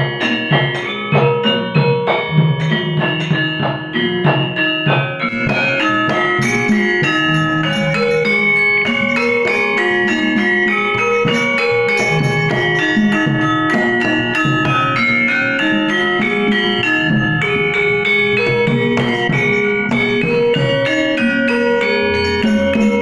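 Javanese gamelan ensemble playing, its metal-keyed metallophones struck with mallets and carrying a stepping melody. Sharp knocks and drum strokes mark the first five seconds, after which the playing settles into a steady, dense texture.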